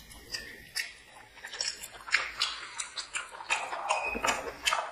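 Close-up chewing and mouth sounds of people eating mutton biryani: irregular smacks and clicks, several a second.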